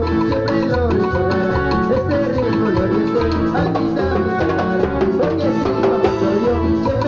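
Chicha band music playing live: a steady, danceable bass and drum beat under a melodic lead line.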